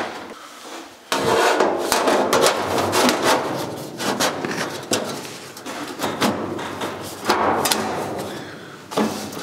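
Sheet-steel body panel scraping and rattling against the car's body as it is pressed and shifted by hand to fit, with many small knocks. It comes in several bouts, starting about a second in.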